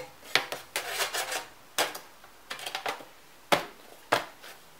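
Aluminium bottom cover of a MacBook Pro being laid onto the unibody case and pressed into place: a series of sharp clicks and light metallic taps, busiest in the first second and a half, then single sharp clicks about two, three and a half and four seconds in.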